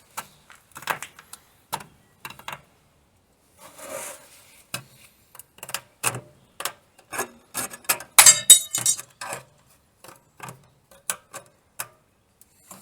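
A thin sheet-metal body panel is handled and offered up against the car's frame for a trial fit: irregular knocks, clinks and rubbing scrapes. About eight seconds in comes a louder burst of metallic clattering and ringing.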